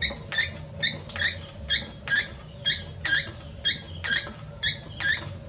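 A spinning potter's wheel squeaking in a steady rhythm, about two short squeaks a second, over a low rumble.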